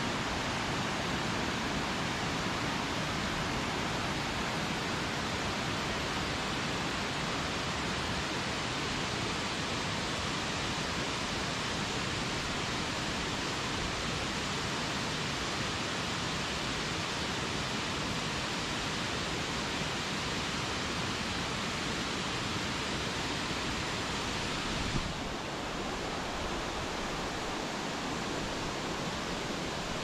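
Waterfall: falling water rushing in a steady, even hiss. Near the end the sound turns a little duller and quieter.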